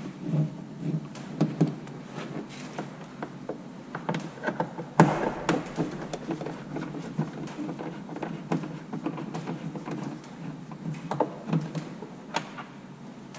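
Scattered clicks and knocks of hand tools and plastic trim as the screws holding a car's door card are undone, with one sharper knock about five seconds in.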